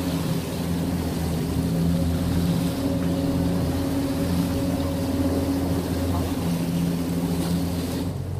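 Boat's engine running with a steady low drone, over a hiss of wind and water noise. The hiss drops away sharply just before the end.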